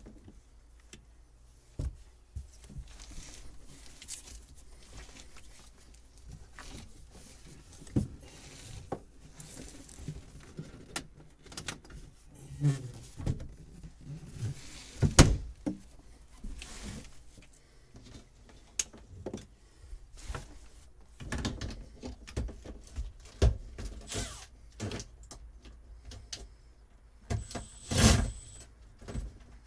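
Hands at work on old boat wiring and fittings: irregular clicks, knocks and rustling as parts are handled and pulled, with a loud knock about halfway through and another near the end.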